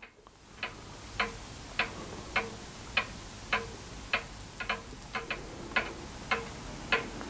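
Steady mechanical ticking, a little under two ticks a second, each tick sharp with a short ring, with a few extra quicker clicks around the middle.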